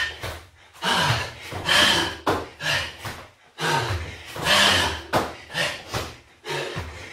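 A man breathing hard in short, forceful bursts while doing burpees, with thuds as his hands and feet land on a foam floor mat.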